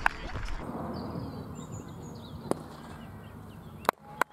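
Birds chirping faintly over steady outdoor background noise, with a few sharp clicks, several of them loud and close together near the end.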